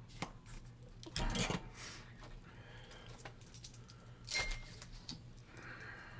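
Hands handling small materials on a workbench: scattered light clicks and rustles, with louder rustling or scraping about a second in and again about four seconds in.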